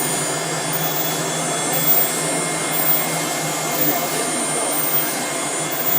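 CNC engraving machine running with a steady whir and several thin, constant high-pitched tones.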